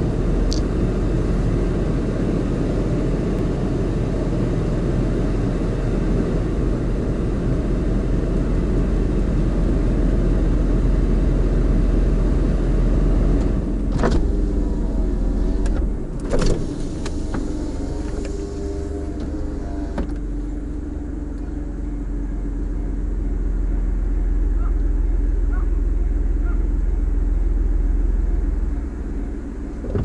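Steady low rumble of a stopped car idling, heard from inside the cabin. A few sharp clicks and knocks come about halfway through.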